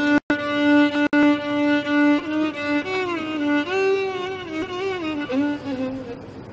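Background score music: a solo bowed-string melody holds one long note, then plays a slow phrase that moves up and down and fades out near the end. The sound cuts out for an instant twice near the start.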